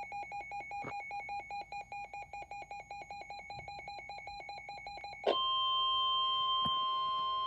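Emergency alert tones. A rapid electronic beeping, about seven beeps a second, gives way about five seconds in to a louder, steady alarm tone.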